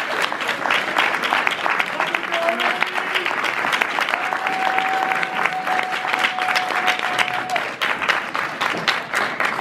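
Audience applauding: dense, steady clapping that goes on without a break.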